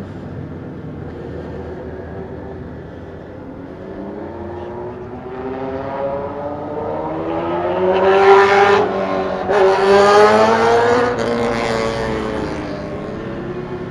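Motorcycle engine accelerating hard, its pitch climbing through the revs and dropping at two quick gear changes about nine and eleven seconds in, then easing off as the revs fall.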